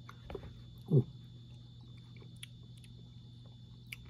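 Faint mouth sounds of a man tasting hot chili off a spoon: one short sound falling in pitch about a second in, then a few small clicks, over a steady low hum.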